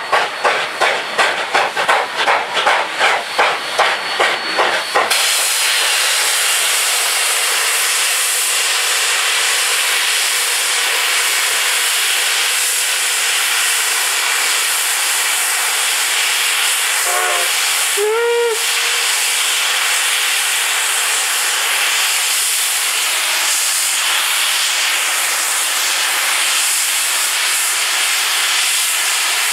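Steam locomotive No. 463, a narrow-gauge K-27 2-8-2, exhausting in steady chuffs, about three a second; these stop suddenly about five seconds in and give way to a steady loud hiss of steam from the standing engine. About two-thirds of the way through, two short whistle toots, the second louder.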